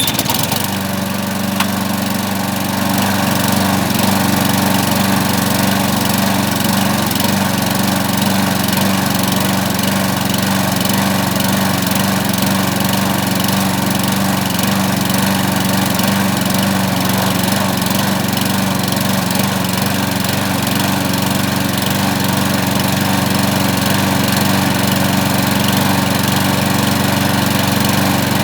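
Walk-behind lawn mower's small petrol engine catching right at the start and then running steadily. It runs with no air filter fitted and its throttle cable not attached.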